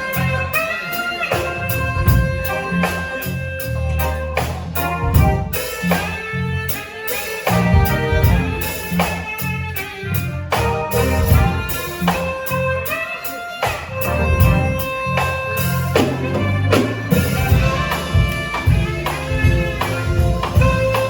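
Instrumental band music with drums, a moving bass line and held melody notes, no singing.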